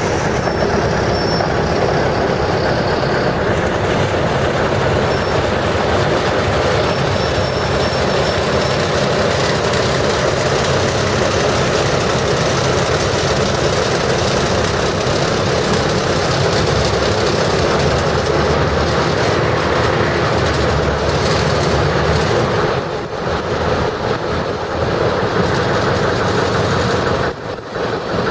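Small diesel shunting locomotive's engine running under load as it pushes a dead steam locomotive along the track, with a steady low rumble. The sound dips briefly twice near the end as the shunter eases off.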